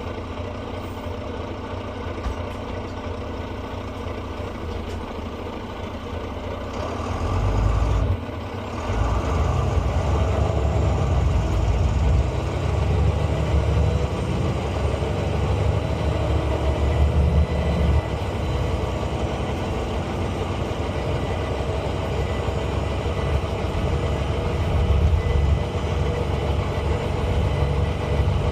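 Volvo B9 bus's turbocharged six-cylinder diesel engine idling, then getting louder about seven seconds in as it pulls away under load, with a brief drop near eight seconds before it picks up again and keeps running.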